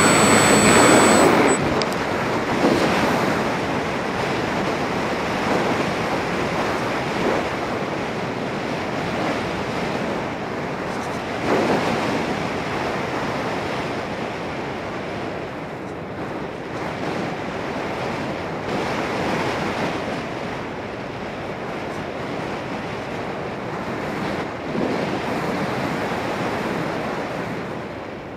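Electric motor of a Volantex Phoenix 1600 RC glider whining, cut off about a second and a half in; then a steady rush of air over the onboard camera's microphone as the glider glides with the motor off, swelling and easing now and then.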